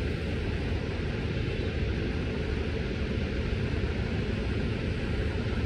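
Steady low rumble with a hiss of outdoor street background noise, picked up by a phone microphone held against clothing.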